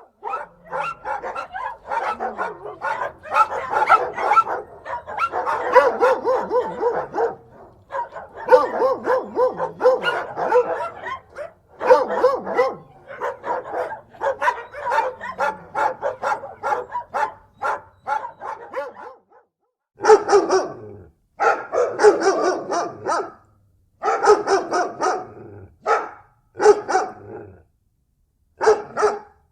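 Dog barking over and over in quick runs. From about twenty seconds in, the barks come in shorter bursts with silent gaps between them.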